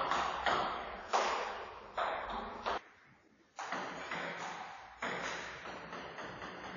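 Table tennis rally: the celluloid ball struck sharply back and forth off rubber paddles and the table, each hit ringing out in a large hall, with a short break about three seconds in.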